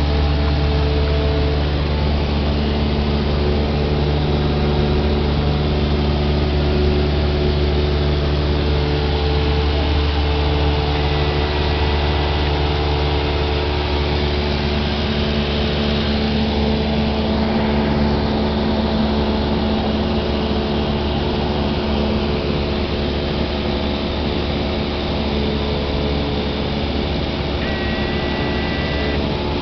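Light propeller aircraft heard from inside the cabin in flight: the engine and propeller give a loud, steady drone with a strong low hum and several steady tones above it. Two brief high tones sound, about eleven seconds in and again near the end.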